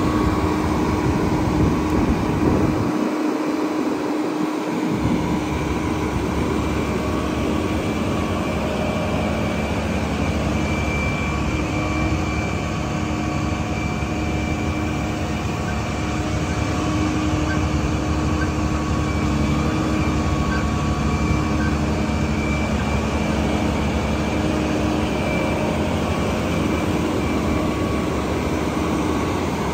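Fire truck's diesel engine and hydraulic system running steadily to work a Seagrave tower ladder's raised aerial, a low rumble with steady whining tones over it.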